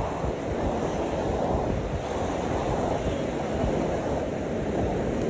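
Sea waves washing onto a sandy beach in a steady wash of surf, with wind rumbling on the microphone.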